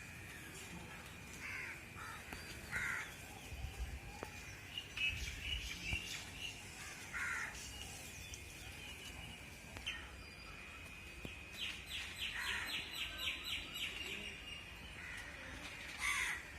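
Several birds calling and chirping in short scattered calls, with one rapid trill of about ten notes in the second half, over a steady high-pitched tone and a low background rumble.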